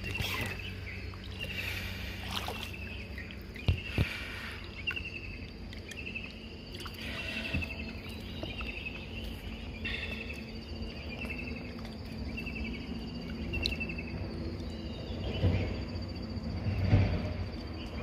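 Two sharp wooden knocks on a dugout canoe's hull about four seconds in, then water splashing near the end as a gill net is hauled up from the river by hand. Repeated short high chirps and a steady high whine go on behind.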